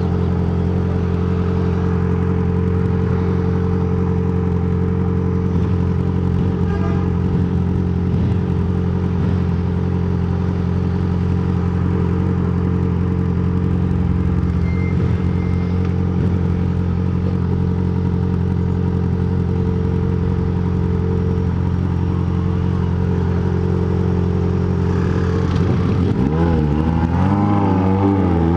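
Inline-four sport motorcycle engine running at a steady speed, then revved several times near the end, its pitch rising and falling.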